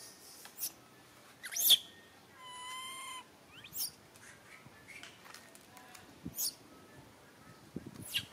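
Young macaque calling: a few short, sharp high-pitched cries and one longer whistle-like coo about two and a half seconds in.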